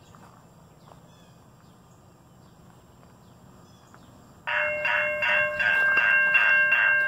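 Faint outdoor background, then about four and a half seconds in a railroad grade-crossing bell starts ringing loudly in rapid, even strokes. The crossing signals are activated, warning of an approaching train.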